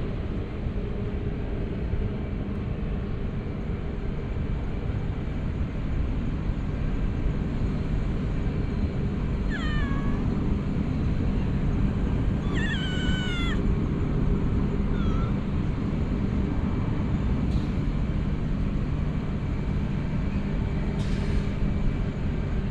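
Calico cat meowing twice near the middle, the first call short and falling, the second longer and wavering, followed by a faint short meow. A steady low rumble of background noise runs underneath and is the loudest sound.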